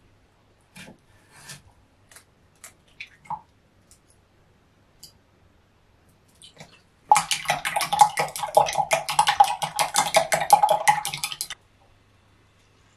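Kitchen food-preparation sounds: a few light clicks and taps, then about four and a half seconds of rapid, evenly repeated strokes with a ringing tone that stop suddenly.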